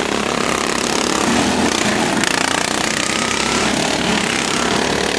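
Modified racing lawnmower engines running loud and steady.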